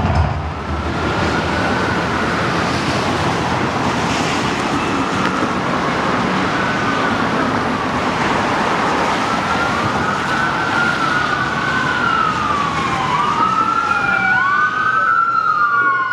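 Emergency vehicle sirens wailing, rising and falling in pitch. They are faint at first, then grow louder in the second half, with two or more sirens overlapping, over a steady rushing background noise.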